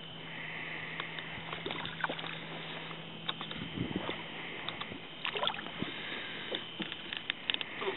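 Small fishing boat on choppy water, with water lapping and knocks and handling noises as a hooked white crappie is reeled up and splashes at the surface. A low steady hum stops about halfway through.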